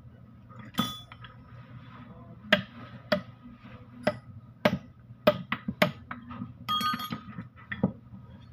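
Metal tools and parts clinking and tapping against a Mitsubishi Canter gearbox housing during disassembly: a dozen or so irregular sharp metallic strikes, some ringing briefly.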